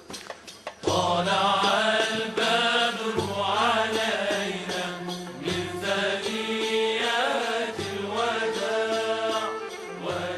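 A solo voice chanting in long, bending melismatic phrases over a low repeating drone, starting about a second in.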